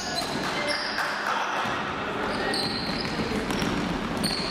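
Basketball play on a hardwood gym floor: the ball bouncing and players running, their sneakers giving short high squeaks again and again.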